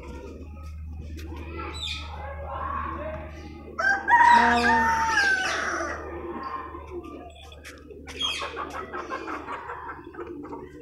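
Domestic chickens: a rooster crows once, loudly, about four seconds in, for about two seconds. Clucking and short high bird chirps come before and after it.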